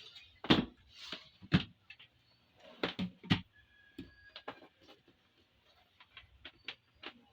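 Irregular clicks and knocks, a few loud and several lighter, from handling an HP E23 G4 monitor and pressing its buttons while powering it on to test it.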